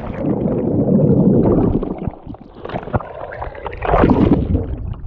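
Sea water sloshing and gurgling close to the microphone as a swimmer moves in the water, in two louder swells with small splashes between.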